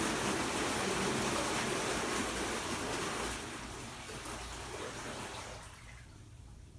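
BlueROV2 Heavy thrusters churning water, a steady rushing wash that fades away over the last few seconds.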